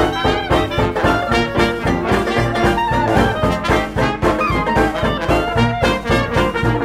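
Upbeat jazzy background music led by brass horns, over a steady beat.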